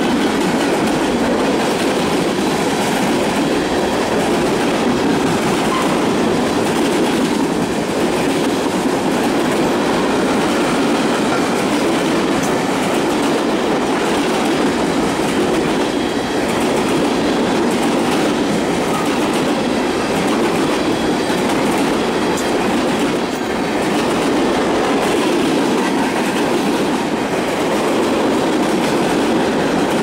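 Freight train of tank cars rolling past close by: a steady rumble of steel wheels running on the rails, with no horn.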